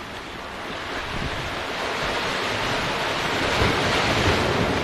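Ocean surf washing against the boulders of a rock jetty, mixed with wind buffeting the microphone; the rush grows louder through the second half, with a couple of dull low bumps near the end.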